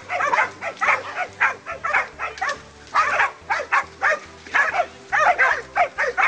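Hunting dogs barking rapidly and without let-up at a wild boar they hold at bay, a few sharp barks a second with a brief lull about halfway through.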